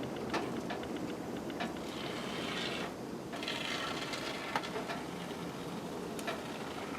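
Aerosol can of expanding spray foam hissing out in two short spurts, with scattered clicks and rattles from the can being handled.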